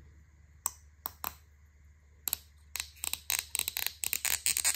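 Small hard plastic carburettor jet parts clicking and rattling against each other as they are worked apart by hand: a few separate clicks, then a quick run of clicks from about halfway through.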